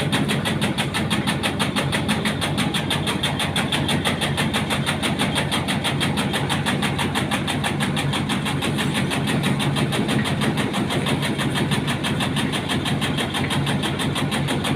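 Engine-driven tobacco cutting machine running steadily, with a fast, even pulsing that holds unchanged throughout.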